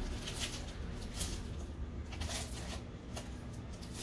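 Foil trading-card pack crinkling as it is torn open and pulled apart by hand, in short irregular rustles.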